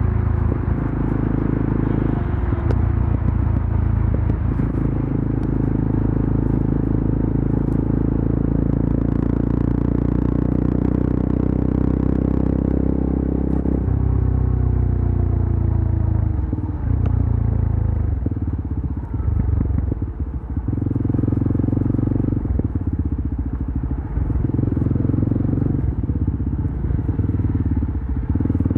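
Yezdi Adventure motorcycle's single-cylinder engine and exhaust running on the highway. About halfway through the engine note falls as the rider eases off. In the latter part the note shifts up and down in steps with throttle changes and gear shifts.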